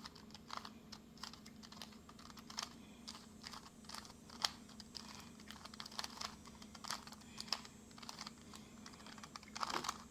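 A 2x2 Rubik's Cube being turned quickly by hand: a run of short, irregular plastic clicks as the layers are turned through an algorithm, over a faint steady hum.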